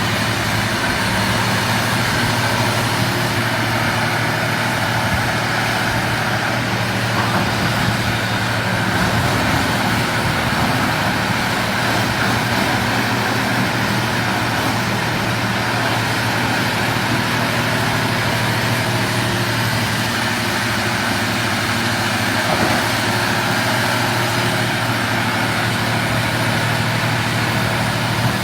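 Diesel engine of a hydraulic excavator running steadily as the machine digs into a hillside: an even engine drone with little change in pitch or level.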